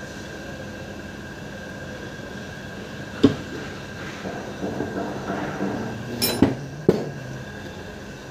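Metal starter-motor parts, the planetary reduction gears and their housing, clinking and knocking as they are handled: a sharp knock about three seconds in, a spell of light rattling, then two more knocks near the end. A steady hum runs underneath.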